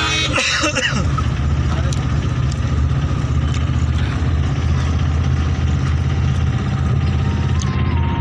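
Tata Magic shared van's engine running steadily under way, heard from inside the passenger cabin as a low, even rumble with road noise.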